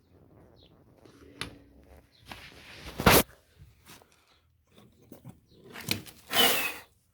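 Hand-tool handling noises while working on a mower deck: a few sharp clicks and two short scraping or rubbing noises, the first ending in a loud knock about three seconds in.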